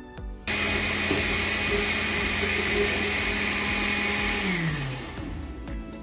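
Countertop blender with a glass jar running, liquidising chopped fruit and vegetables with juice into a green juice. It switches on abruptly about half a second in, runs steadily, then winds down with a falling hum about four and a half seconds in.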